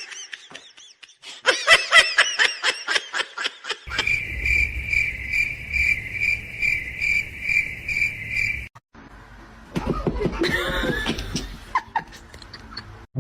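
Bursts of laughter, then a steady high-pitched chirp pulsing about three times a second for around five seconds, then a short stretch of laughing or voice-like sounds.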